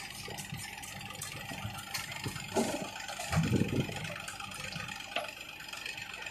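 JCB 3DX backhoe loader's diesel engine running steadily as it works, with a short clatter at about two and a half seconds and a heavy thud at about three and a half seconds as a bucketload of soil is dumped into a tractor trolley.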